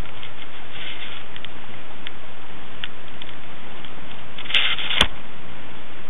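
European hedgehogs eating, with faint irregular smacking clicks over a steady hiss; about four and a half seconds in, a short rustle, then a single sharp knock.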